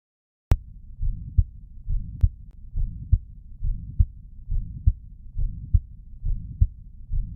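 Recorded heartbeat starting about half a second in: paired lub-dub beats, roughly 70 a minute. A continuous low rumbling murmur fills the gaps between the beats, the sign of abnormal turbulent blood flow through the heart.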